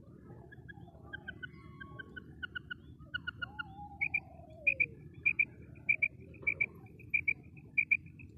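Female quail (batair) calling: a quick series of short paired notes, about one pair every two-thirds of a second, faint at first and louder from about halfway in.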